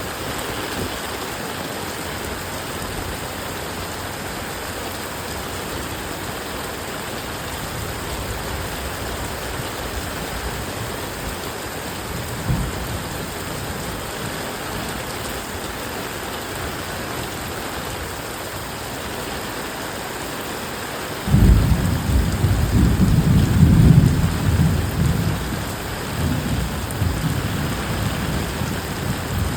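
Heavy rain falling steadily as an even hiss. A short low thump of thunder comes about halfway through. About two-thirds of the way in a loud peal of thunder breaks in suddenly and rolls on, loudest a few seconds after it starts.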